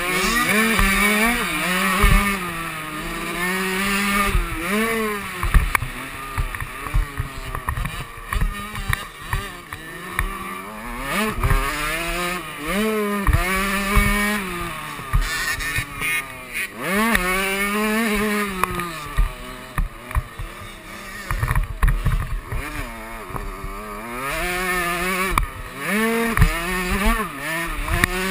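KTM 65 two-stroke motocross engine revving hard, its pitch climbing and dropping over and over as the rider works throttle and gears around the track. Low thumps are scattered through it.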